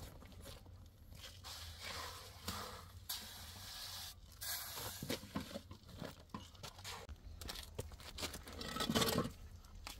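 Irregular scraping and knocking of concrete block laying: a shovel scraping through mortar and hollow concrete blocks being pushed and set into it, with a louder scrape near the end.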